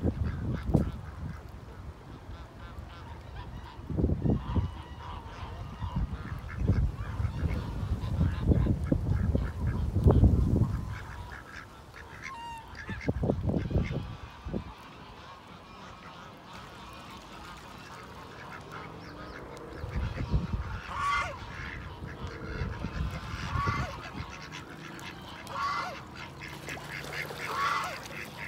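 Domestic geese honking: several separate, spaced honks, most of them in the second half. Bursts of low wind rumble on the microphone in the first half are the loudest sound.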